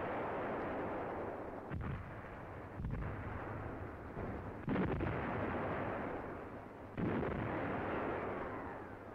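Artillery fire on an old, muffled film soundtrack: four heavy booms a second or two apart, each trailing off in a long rumble.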